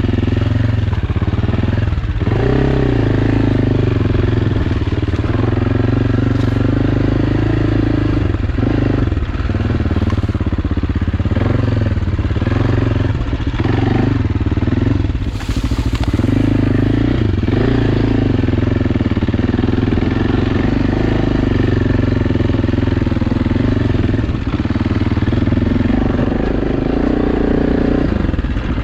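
AJP PR7's single-cylinder engine running under load as the motorcycle is ridden off-road, its pitch rising and falling repeatedly as the throttle is opened and closed.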